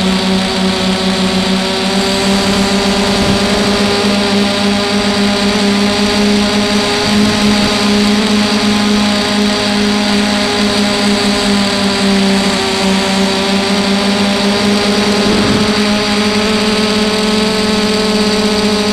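FPV drone's electric motors and propellers heard through its onboard camera: a steady whine over a hiss, the pitch wavering slightly.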